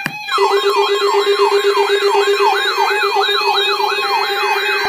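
Electronic siren sounding in fast, repeating falling sweeps, about three a second, over a steady lower tone.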